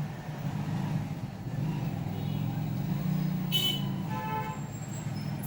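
Steady low background hum, with a short pitched tone about four seconds in.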